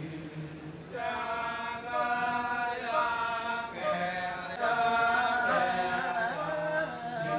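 Voices chanting in a Balinese Kecak performance: a low steady hum, then from about a second in long held sung notes that change pitch about once a second.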